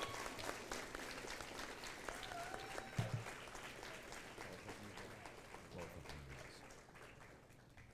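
Audience applause, hands clapping that thin out and fade toward the end, with one sharp thump about three seconds in.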